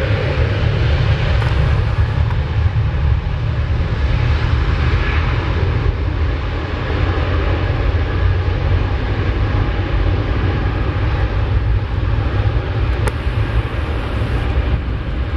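Airbus A380-861's four Engine Alliance GP7270 turbofans at takeoff thrust during the takeoff roll: a loud, steady roar with a deep rumble underneath.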